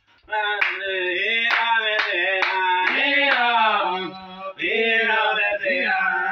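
A man singing a gospel song at full voice, with sharp percussive hits about twice a second through the first half.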